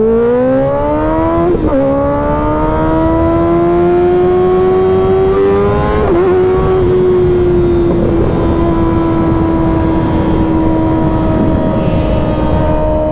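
2024 Kawasaki ZX-6R's inline-four engine accelerating hard: the revs climb, drop sharply at a quick-shifter upshift about a second and a half in, climb again, and drop at a second upshift about six seconds in. It then settles into a steady cruise at nearly constant revs.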